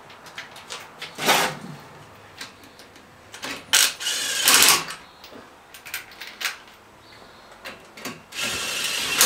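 Lug nuts being run onto wheel studs, with three short spins of a power tool, the longest about a second and a half, and light metallic clicks between them.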